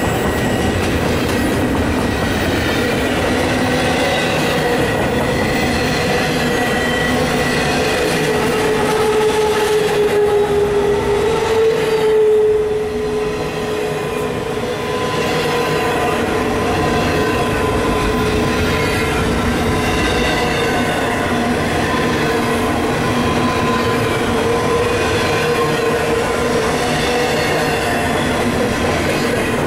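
Double-stack intermodal well cars rolling past: a steady rumble of steel wheels on rail with a continuous squealing tone from the wheels, which swells briefly partway through and then eases.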